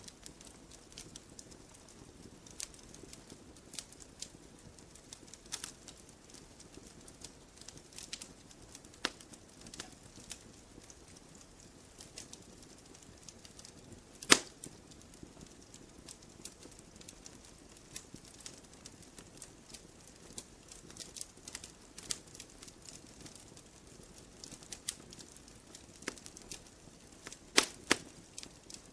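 Campfire burning wood crackling: irregular sharp snaps and pops over a low, steady hiss. One loud pop comes about halfway through, and a quick cluster of pops comes near the end.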